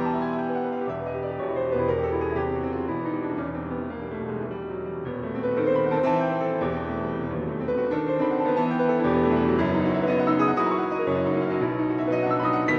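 Piano music with runs of notes falling in pitch.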